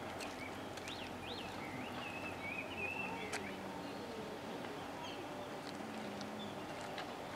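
Background ambience: a low steady hum with faint distant voices, and a few short high chirps, rising and falling, about one to three seconds in.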